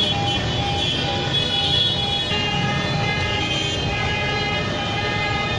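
Busy city street traffic: a steady rumble of engines and road noise, with vehicle horns sounding in long steady tones over it.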